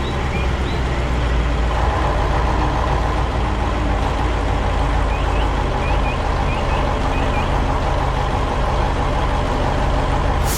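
Heavy truck engine running steadily, a low rumble, with a higher hum joining about two seconds in. Faint bird chirps come near the start and again around five to seven seconds in.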